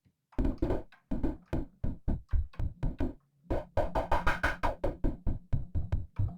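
Short synthesized noise hits played in quick succession, about four a second with a brief pause near the middle. The noise is run through a filter with its resonance turned up, so each hit has a pitched ring at the cutoff frequency.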